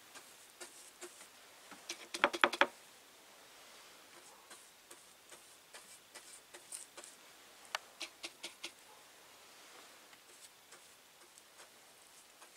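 Chip brush dabbing fiberglass resin into a metal roof channel: faint patter with quick runs of sharp ticks, the loudest about two seconds in and another about eight seconds in.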